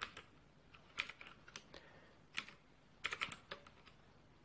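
Computer keyboard keys being typed: a few separate keystrokes, then a quick run of several about three seconds in.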